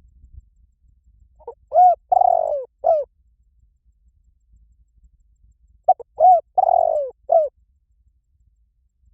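Spotted dove cooing: two phrases of about four short coos each, a few seconds apart.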